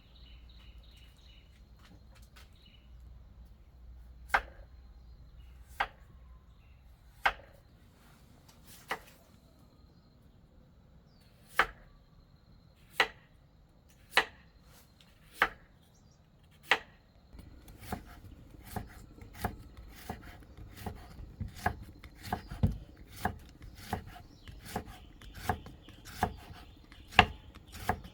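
Chopping with a blade on a wooden board. Single strikes come every second or so at first, then from about two-thirds through the strokes come faster and steadier, about one and a half a second.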